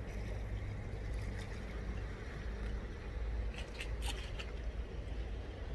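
Low, steady rumble of wind buffeting the phone's microphone, with a few light clicks and taps between about three and a half and four and a half seconds in.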